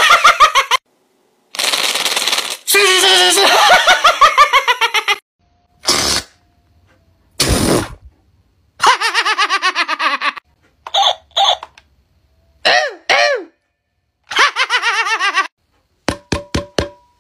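A man laughing loudly in repeated bursts of rapid, chopped 'ha-ha' pulses with short pauses between them. Four quick sharp clicks come near the end.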